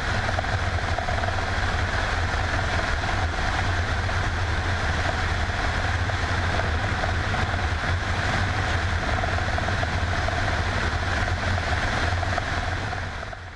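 Mil Mi-24 attack helicopter in flight, heard from a camera on its own airframe: a steady, loud drone of rotor and twin turboshaft engines, fading out just before the end.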